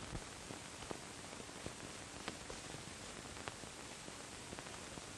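Faint steady hiss of an old optical film soundtrack, with a few faint scattered clicks.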